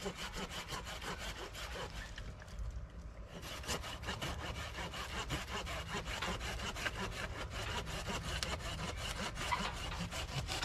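Hand pruning saw cutting through a tree branch with steady back-and-forth strokes.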